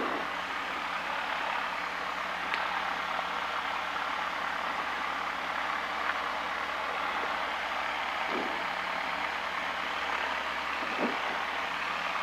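Single-engine light aircraft's piston engine running steadily at low power with the propeller turning, heard from inside the cockpit as a constant hum and hiss. A couple of faint ticks break in.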